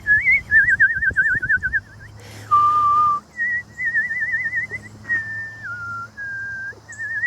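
A person whistling to call a cardinal: a string of warbling and held whistled notes, broken by short pauses, with one lower held note about three seconds in.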